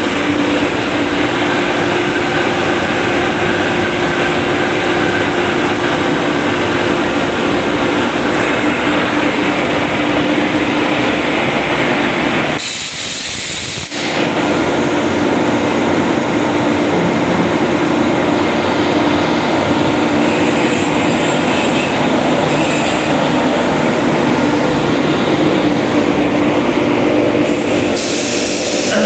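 Oxygen plant's air compressor running with a steady mechanical drone and hum. It dips briefly in level about 13 seconds in.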